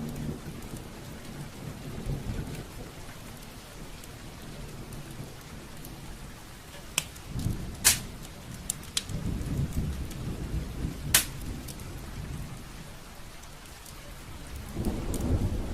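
Wood fire burning in a fireplace: a low rumble of flames that swells and fades, with a handful of sharp crackling pops in the middle stretch.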